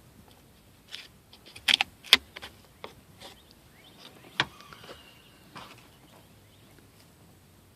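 Irregular sharp clicks and knocks, the loudest a quick cluster about two seconds in and another single knock a little after four seconds, from hand work on the van's interior trim and parts.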